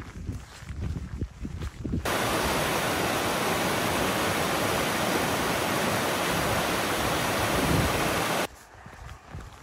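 Footsteps on a dirt trail, then about two seconds in a sudden switch to a shallow mountain stream rushing and splashing over rocks. The rush is steady and loud for about six seconds, then cuts off abruptly back to footsteps near the end.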